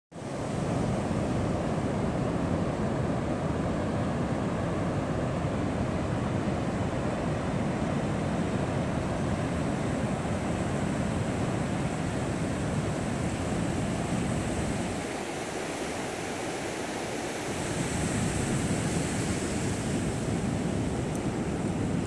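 Pacific surf breaking and washing steadily onto a sandy beach, a continuous rushing wash of noise, with wind rumbling on the microphone. The low rumble eases for a couple of seconds past the middle and then comes back.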